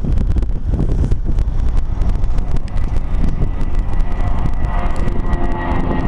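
Boeing 757-200 jet engines at takeoff power as the airliner lifts off and climbs out: a loud, deep rumble with crackle. From about halfway through, a steady whine of engine tones comes through over the rumble.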